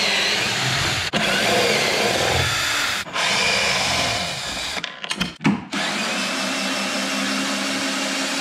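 Ryobi cordless drill-driver with a Torx T25 bit running in bursts, backing out the screws and bolts that hold a snowmobile's plastic panel. It stops briefly about a second in and again about three seconds in, gives a few short stuttering bursts around five seconds, then runs steadily.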